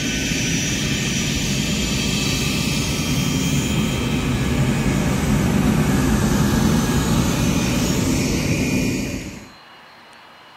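Delta Boeing 757-200's twin jet engines at takeoff power as the airliner rolls past on its takeoff run, a loud steady jet rumble and roar that swells a little in the second half and cuts off suddenly about nine and a half seconds in.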